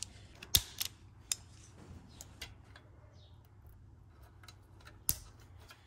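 Wire strippers snipping and trimming back an insulated wire: a few sharp clicks in the first second and a half, then small ticks of wire handling and one more sharp click near the end.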